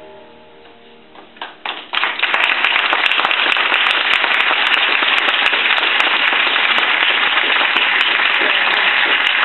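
Audience applauding: a few scattered claps about a second in, then dense, steady applause from about two seconds on.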